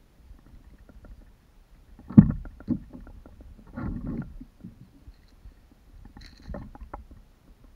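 Handling noises in a kayak as a caught fish and tackle are handled: a sharp knock about two seconds in is the loudest, then a short patch of rustling and a few lighter clicks and knocks near the end.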